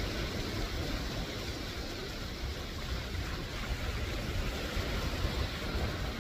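Steady wash of sea surf breaking on a rocky shore, with a low rumble of wind on the microphone.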